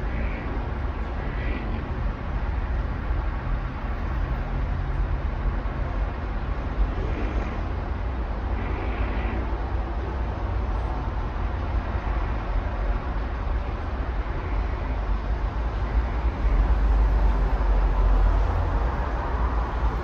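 Distant city traffic: a steady low rumble of road noise from a jammed highway, swelling louder for a couple of seconds near the end.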